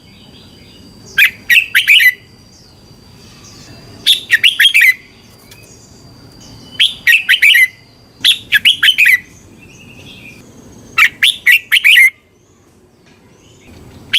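Red-whiskered bulbul singing: about five short, loud phrases of quick bubbling notes, one every two to three seconds.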